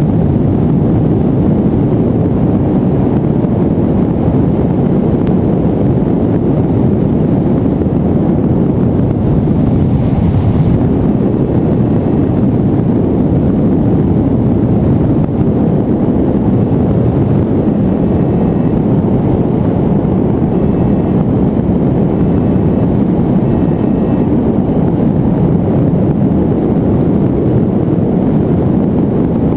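Airflow of a paraglider in flight buffeting the camera's microphone: a loud, steady rumble of wind noise with no breaks.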